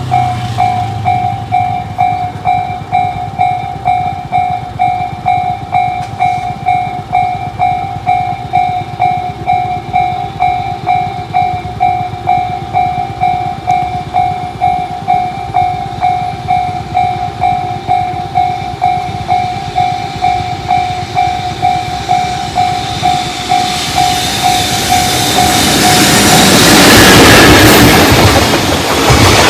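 Level-crossing alarm (JR standard warning sound) ringing, a steady tone repeating about twice a second. In the last several seconds a freight train comes through, its running noise growing loud, and the alarm tone stops about three seconds before the end as the train passes.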